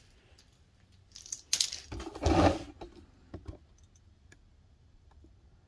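Clicks and a short metallic clatter about two seconds in as a metal track-saw clamp is handled and set down, followed by a few light ticks.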